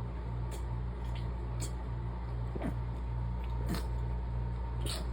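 Steady low hum with faint, short stifled nasal catches about once a second, from a woman holding back sneezes during an allergy fit.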